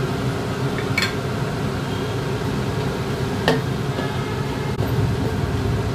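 Green chillies and whole spices frying gently in oil and ghee in an aluminium pot, under a steady low hum. A wooden spatula knocks against the pot about three and a half seconds in.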